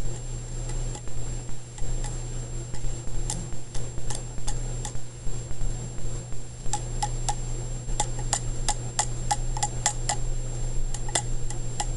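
Irregular sharp clicks and snaps as a carbon electrode is tapped and touched against its contact to strike a carbon arc. The clicks are sparse at first and come much faster from about seven seconds in, over a steady low hum.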